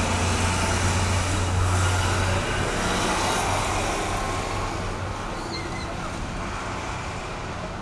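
Motor vehicle noise: a steady low engine hum that cuts out about two and a half seconds in, over broad road-like noise that then fades slowly.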